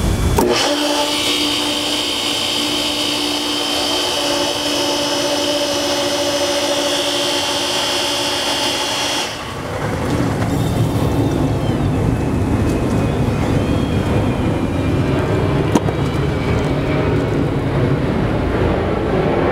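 Pool pump motor running, its sound changing abruptly twice, about half a second in and again about nine seconds in, as the new GE smart switch toggles the pump. A steady hum with a high hiss fills the middle stretch. A single sharp click comes about sixteen seconds in.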